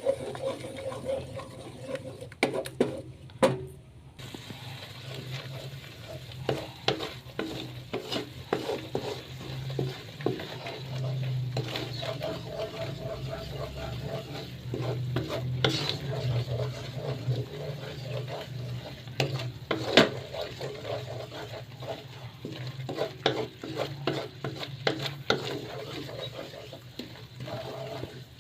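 Spatula stirring and scraping a chili spice paste sizzling in a frying pan, with frequent sharp clicks of the spatula against the pan over a low steady hum.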